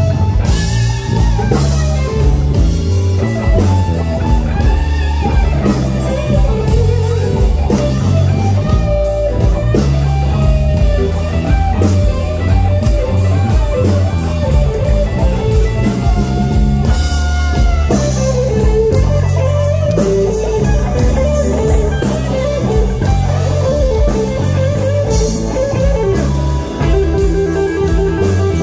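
Live blues-rock band with a Stratocaster-style electric guitar playing a lead solo full of string bends over bass and drums; near the end the guitar repeats one note rapidly.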